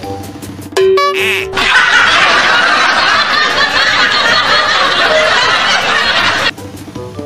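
Background music interrupted about a second in by a short held tone and a quick warbling sound effect, followed by about five seconds of loud canned laughter that cuts off sharply, after which the music carries on.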